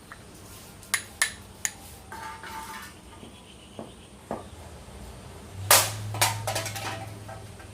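A handful of sharp knocks and clatters of small hard objects being handled, the loudest near the end, followed by a low steady hum.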